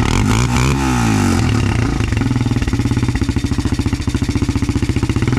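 Quad (ATV) engine revving hard as it tries to pull out of a mud hole. Its pitch swings up and down in the first second, then it holds at high, steady revs with a rapid chugging pulse.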